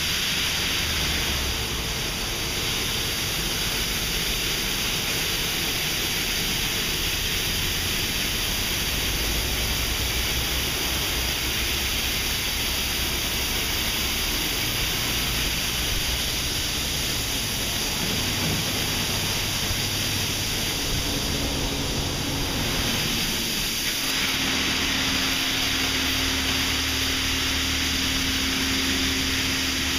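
Belanger Saber SL2 automatic car wash spraying water over a car: a steady hiss of spray on the bodywork. A steady low hum joins about three-quarters of the way through.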